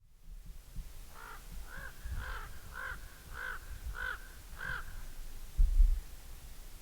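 A crow-like bird cawing seven times in an even series, a little under two calls a second, over a low rumble. A brief, louder low thump follows near the end.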